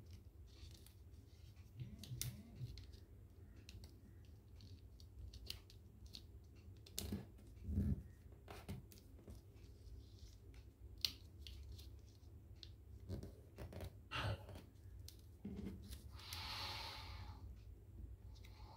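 A sheet of glossy origami paper being folded and creased by hand on a table: faint scattered crackles, snaps and taps, with a longer rustle of paper about 16 seconds in.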